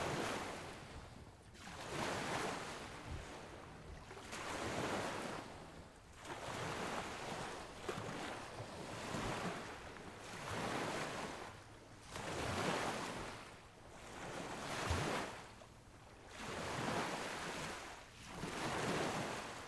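Lake waves washing ashore in a slow, regular rhythm, each swell of surf rising and falling away about every two seconds.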